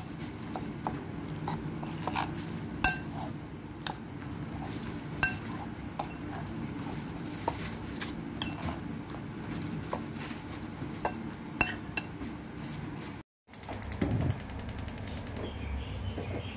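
A metal fork clinking and scraping against a ceramic plate at irregular intervals while stirring chopped cha-om (acacia shoots) into beaten egg, over a steady low hum. The sound cuts out for a moment near the end, then the hum goes on.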